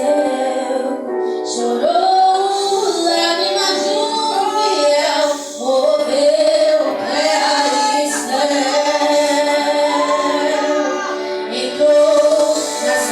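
Worship song sung by female voices with musical accompaniment.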